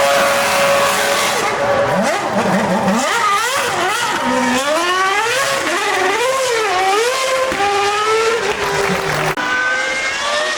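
Formula 1 car engine revving hard, its pitch rising and falling rapidly with the throttle as it drives donuts, with tyre squeal underneath. The engine note changes abruptly near the end.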